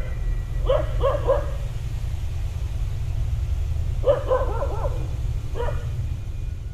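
Dogs barking in short bursts: a quick run of three barks about a second in, a longer cluster around four seconds in, and one more bark near the end, over a steady low rumble.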